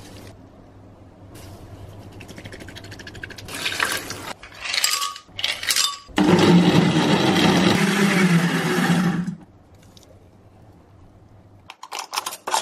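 Almond milk poured into a glass blender jug, then a De'Longhi countertop blender runs for about three seconds, blending a smoothie. A few sharp glass clinks near the end.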